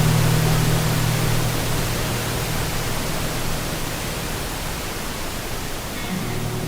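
Steady rush of falling water, an even hiss spread from low to high, with soft guitar music fading out about a second in and returning near the end.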